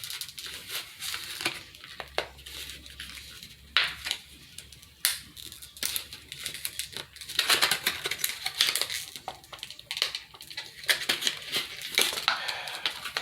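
Plastic flashlight packaging being crinkled, pried and torn open by hand: irregular crackling and sharp snaps, with louder spells of crinkling about halfway through and near the end.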